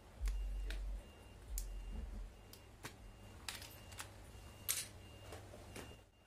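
Scattered light clicks and knocks of hard plastic parts as a car side mirror's base and housing are handled and fitted together, with a low rumble in the first two seconds.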